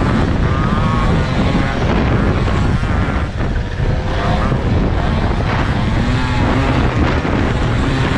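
Small two-stroke moped engine at racing revs, its pitch climbing and dropping again every second or two as the throttle is worked, over a heavy low rumble.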